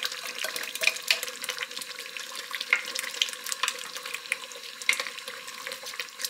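Thick ragù sauce simmering in an electric auto-stirring pan, spitting and crackling with many irregular sharp pops over a steady hiss, with a faint continuous hum under it.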